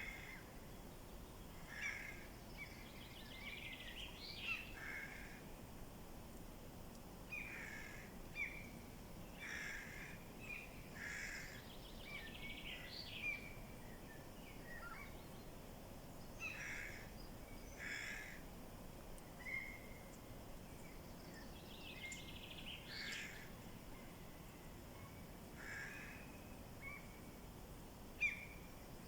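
Birds calling in short calls, several every few seconds, some with quick upward or downward slides in pitch, over a steady low background hiss.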